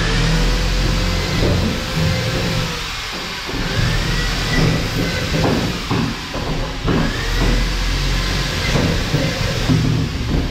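Corded electric drill driving screws through Hardiflex fiber-cement board into metal tubular framing. It runs three times, each time rising to speed and holding a steady whine for two to three seconds, with scattered knocks between runs.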